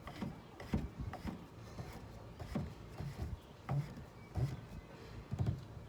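Irregular light knocks and rubbing from hands working in the engine bay as the radiator cap is put back on.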